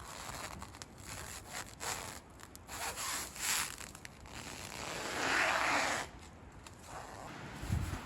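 A series of irregular rubbing and scraping strokes, with a longer, louder stroke of about a second a little past the middle.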